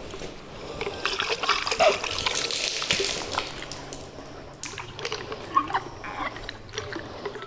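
Water being squirted into a horse's mouth, held open by a metal dental speculum, then splashing and dribbling out: the mouth rinse that ends a dental float. A few small clicks are heard alongside.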